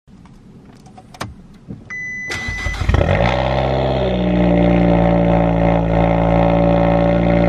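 Fiat 500 Abarth's turbocharged four-cylinder engine, heard at the exhaust, cranking and catching between two and three seconds in, its revs flaring briefly before settling into a steady idle. A short high beep sounds just before the start.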